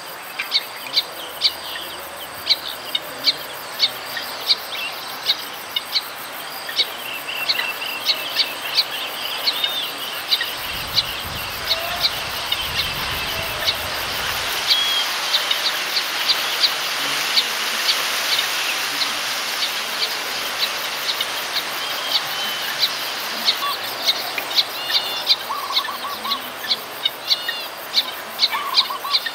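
Weaver birds calling: sharp, high chips repeated one or two a second, with softer chattering between, over a steady insect hiss. A low rumble runs briefly midway.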